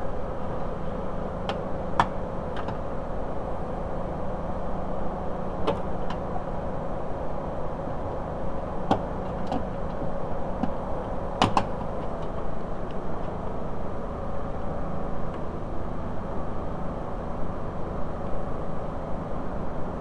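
Scattered sharp plastic clicks of wiring-harness connectors and clips being unclipped from a car door's regulator panel, the loudest about eleven and a half seconds in, over a steady background hum.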